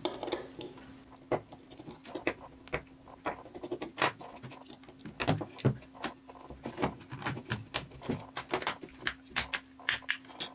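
Irregular clicks, taps and scrapes of tools and hard plastic as an old mobile-phone battery pack is pried apart by hand, over a faint steady hum.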